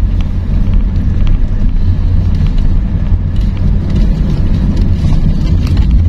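Sedan driving on a dirt road, heard from inside the car: a steady low rumble of tyres and engine, with scattered light knocks from the rough surface.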